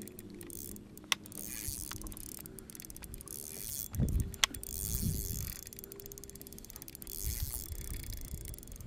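Steady low hum of a boat's motor with air noise higher up, broken by a couple of sharp clicks about one and four and a half seconds in and low thumps around four and five seconds in.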